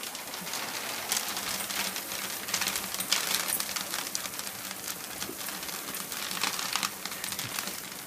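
Dry dog kibble pouring in a steady stream from a bag into a plastic storage bin: a dense, continuous rattling patter of small pieces hitting the pile.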